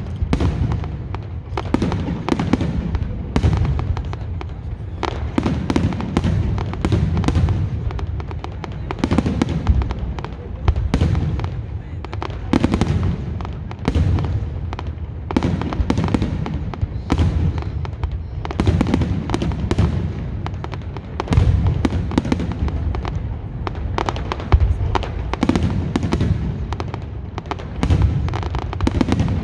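Fireworks display: a dense, irregular run of shell bursts and bangs, often several a second, over a continuous low rumble of explosions.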